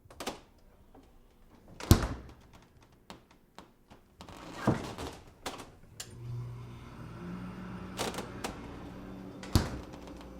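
A door being opened and shut: a series of latch clicks and knocks, with the loudest thud about two seconds in and another shortly before the end. From about six seconds a steady low hum runs underneath.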